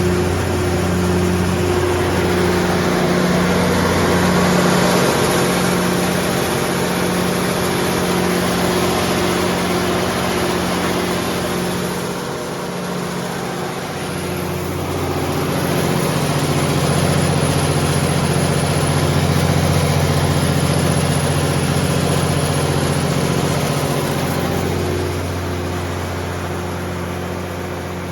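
Onan 75 kW diesel generator set with a Komatsu engine running at steady speed during a load test, a loud, even engine drone. The sound dips slightly about twelve seconds in and comes back up a couple of seconds later.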